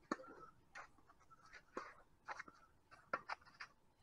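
Tennis racket striking the ball on a serve, a sharp hit right at the start, followed by a rally: several more crisp racket hits and ball bounces over the next three seconds, with light shoe scuffs on the court.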